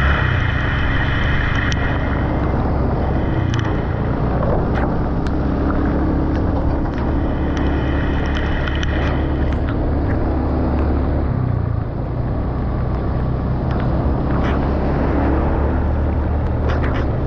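Boat engine running steadily underway: a continuous low drone with a hiss of wind and water, and scattered sharp knocks.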